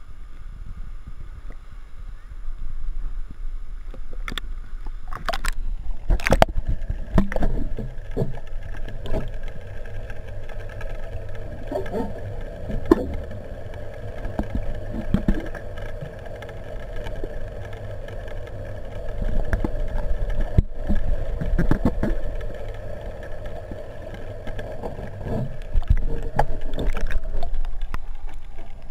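Pool water heard through a handheld camera partly under water: a muffled low rumble of moving water with a steady hum, broken by scattered knocks and bumps as the camera is handled.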